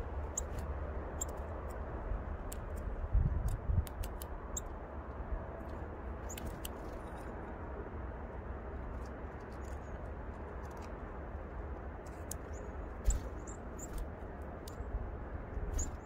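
Scattered short, high-pitched chirps and ticks from small songbirds coming to a hand for sunflower seeds, over a steady low wind rumble on the microphone.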